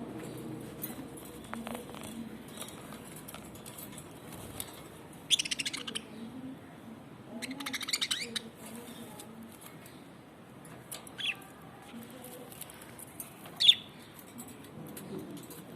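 Budgerigars chirping: two longer buzzy, warbling bursts about five and a half and eight seconds in, then two short, sharp chirps near the end.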